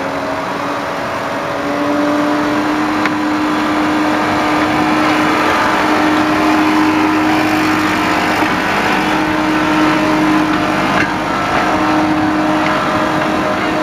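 Miniature railway locomotive running under power, heard from its cab: a steady engine drone with a faint hum over it that rises slightly at the start, growing louder about two seconds in, with a few sharp clicks along the way.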